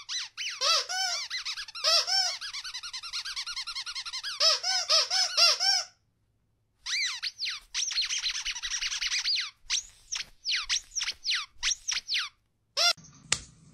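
A played sound clip of rapid, high-pitched squeaks, each rising and falling in pitch. The squeaks come in quick runs, pause briefly about six seconds in, and then thin out into single squeaks before stopping near the end.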